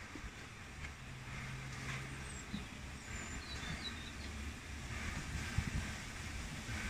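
LNER B12/3 steam locomotive approaching slowly with its train, a low steady rumble, with wind on the microphone. A few faint bird chirps come through about halfway in.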